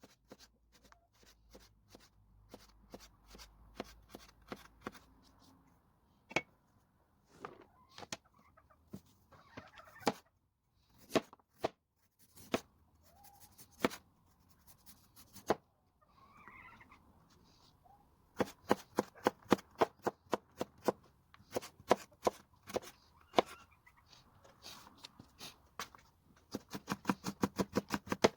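Knife chopping food on a cutting board: scattered single cuts at first, then quick even runs of strokes, fastest near the end at about six a second.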